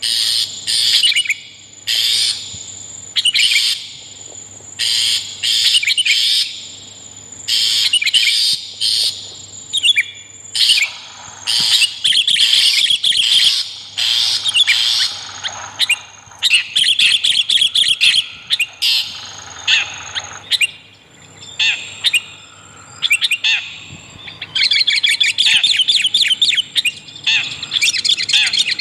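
Bird-lure recording of long-tailed shrike chattering in rapid harsh bursts, mixed with sooty-headed bulbul calls. A thin, high, steady whistle is held for a few seconds at a time through several stretches.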